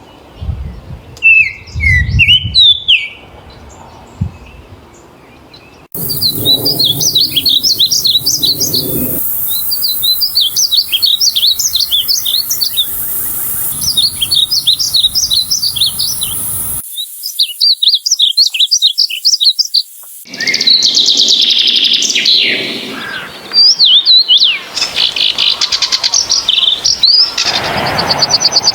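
Birds singing and calling in a run of separate recordings: a few short chirps near the start, then long stretches of rapid repeated chirping phrases that stop abruptly, followed by other birds' calls near the end.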